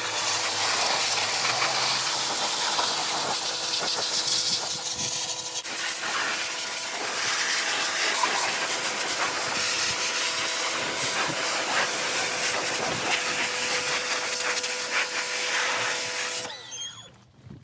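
High-pressure water jet from a pressure washer wand hissing as it blasts the sheet-metal casing and frame of a generator, with a steady hum underneath. The spray cuts off abruptly near the end.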